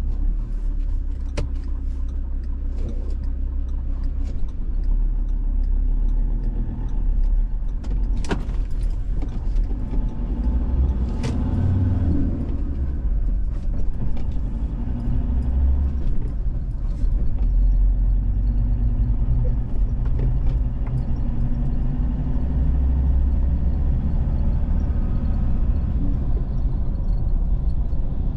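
A vehicle driving along a road: a steady low rumble of engine and tyres, with scattered sharp knocks and rattles, the clearest about 8 and 11 seconds in.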